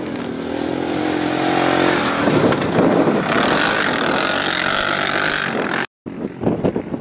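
ATV engine revving as the quad bike climbs the slope, rising a little in pitch, then louder and rougher as it comes close and passes. It stops suddenly about six seconds in.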